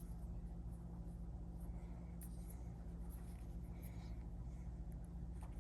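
Faint scratching and rubbing with a few light clicks, over a steady low hum.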